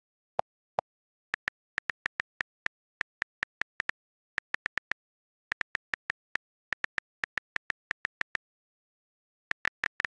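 iPad on-screen keyboard clicks as letters are typed, in quick runs of taps with short pauses between them. Two lower-pitched key clicks come near the start.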